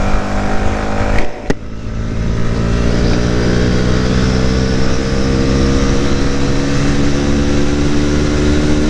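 Yamaha R15 V3's single-cylinder engine pulling as the motorcycle accelerates, with wind noise over it. The note dips briefly a little over a second in, then climbs steadily.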